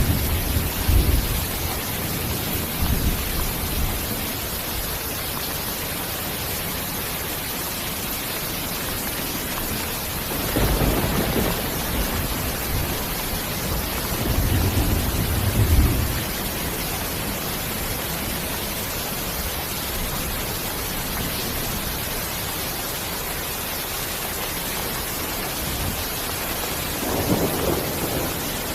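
Steady heavy rain hissing, with several low rolls of distant thunder rumbling in: near the start, twice around the middle, and again near the end.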